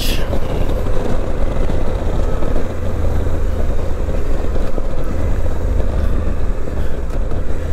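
Steady wind rush and engine noise of a Suzuki V-Strom 800DE, a 776 cc parallel-twin motorcycle, cruising on the highway, heard from the rider's position.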